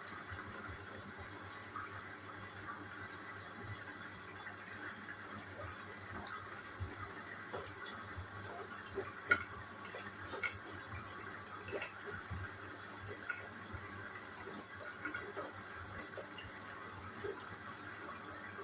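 Water running steadily into a Hoover All In One washing machine as it fills, with small scattered splashes and clicks.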